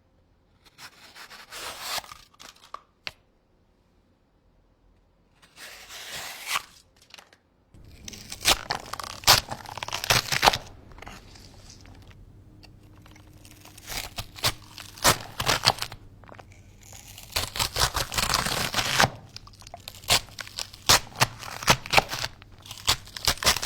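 Knife-sharpening sounds: irregular bursts of scraping strokes full of sharp clicks, with a near-silent pause early on and the strokes coming thicker in the second half.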